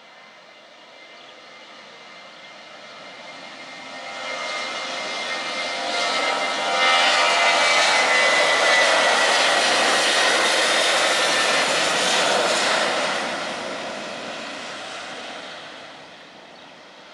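Boeing 737-900ER's CFM56-7B turbofan engines at takeoff thrust as the jet rolls down the runway past the listener. The jet roar swells from about four seconds in, is loudest in the middle with a high whine on top, then fades as the aircraft moves away.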